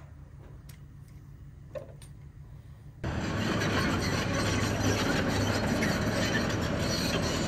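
A few faint taps as a die-cast toy excavator is handled. About three seconds in, the steady, loud running of a real crawler excavator's diesel engine starts abruptly and carries on.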